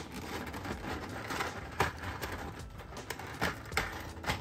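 Hands handling the plastic parts of a Transformers figure and its packing tape: a rustling scrape with several sharp plastic clicks, one a bit under two seconds in and more near the end.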